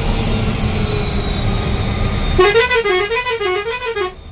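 Steady low road-and-engine rumble of a moving bus. About two and a half seconds in, a warbling musical vehicle horn sounds, its pitch swinging up and down about three times a second, and it cuts off abruptly near the end.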